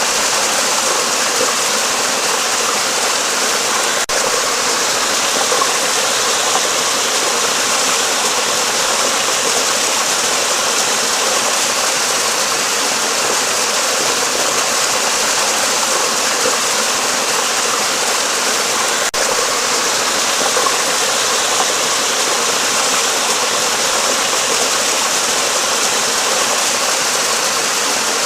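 Rushing water of a stream flowing steadily, an even hiss without breaks or pitch.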